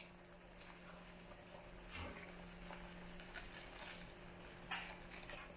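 Quiet cooking at a pot of samlor korko soup: a steady low hum with a few faint clicks of a utensil against the pot, about two seconds in and again near the end.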